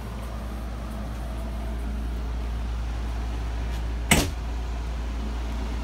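A steady low rumble, with one sharp knock about four seconds in.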